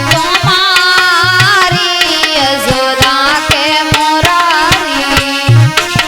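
Instrumental music for a Hindi devotional aarti song: a wavering, ornamented lead melody over a steady hand-drum rhythm, with deep drum strokes coming back near the end.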